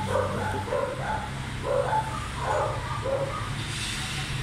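A dog barking repeatedly in short yaps, over a steady low hum.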